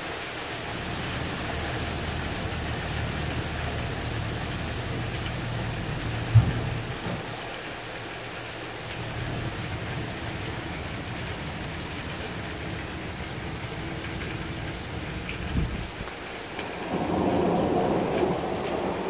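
Torrential rain pouring down steadily, with a low rumble of thunder through the first half and a sharp thump about six seconds in. The rain noise swells louder near the end.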